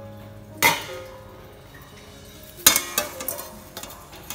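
Large metal pot lid clanging onto a steamer pot as it is set on: two sharp clangs with ringing, the first about half a second in and the second near three seconds, followed by a few lighter clinks.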